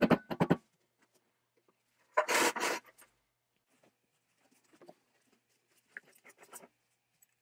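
Handling noise from the old metal spark plug cleaner being taken apart: a few quick metal knocks at the start, a rough scrape about two seconds in, then faint rubbing and clicking as the pressure gauge is worked loose by hand.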